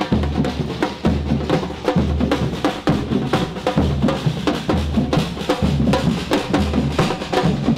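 Music driven by drums, with many quick drum hits over a low bass note that pulses about once a second.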